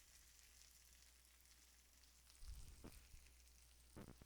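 Faint sizzling of food cooking on the heat, over a low steady hum, with a brief soft knock about two and a half seconds in.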